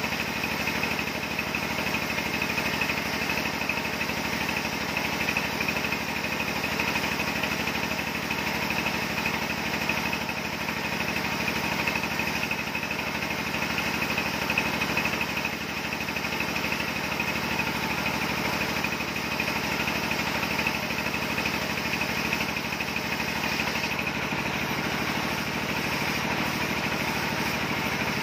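Sawmill running steadily as a log is fed through the saw on its carriage: an even machine drone with a steady high whine, no breaks.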